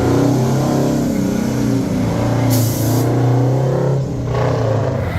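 Heavy diesel truck engine running steadily, with a short hiss of air about two and a half seconds in.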